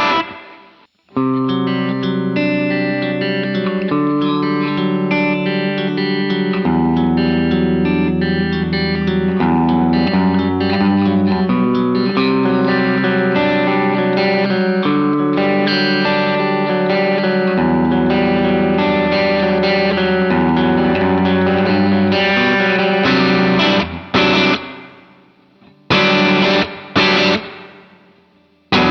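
Electric guitar played through a 1986 ProCo Rat distortion pedal and an amp simulator, moving between clean and crunch tones. Sustained chords and melodic lines ring out, then near the end come a few short chord stabs with gaps between them.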